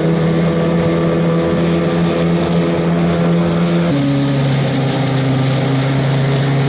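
Small tiller outboard motor pushing an aluminium boat along at speed, running steadily with water rushing along the hull. About four seconds in, the engine note drops a step lower and holds there.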